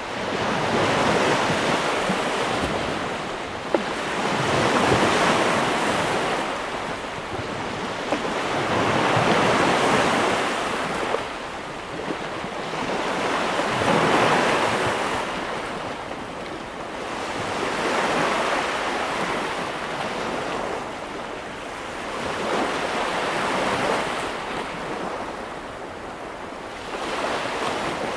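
Ocean surf: waves breaking and washing in, the rush swelling and falling back about every four to five seconds.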